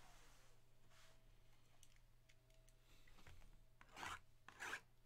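Near quiet, then two short rasping scrapes near the end, about half a second apart: a small blade slitting the plastic shrink wrap on a sealed trading-card box.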